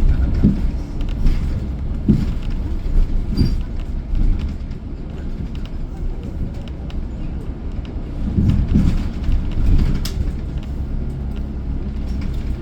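Ride noise heard from inside a moving transit bus: a steady deep rumble of engine and road, with a few short knocks and rattles from bumps, one of the sharpest about ten seconds in.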